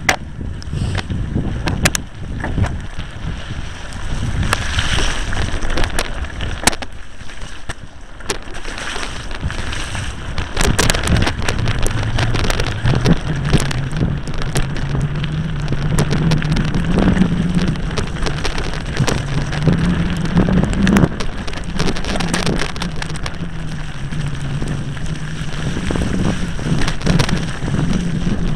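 Wind buffeting the camera microphone as a mountain bike rolls down a wet, muddy track in rain, with frequent rattles and knocks from the bike over rough ground. It gets louder about ten seconds in, and a low wavering hum runs under it from then on.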